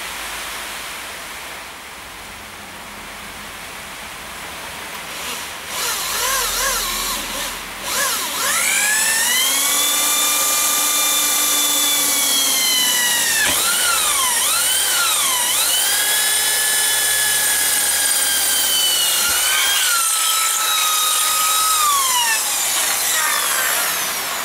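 Electric drill spinning up about eight seconds in to a steady high whine, its pitch dipping twice in the middle and winding down near the end: boring out the holes in a rubber pad so a bolt will pass through. Heavy rain hisses on the roof underneath.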